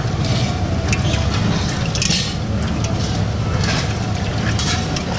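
Steady low rumbling background noise with a hiss, and a brief brighter rush of noise about two seconds in.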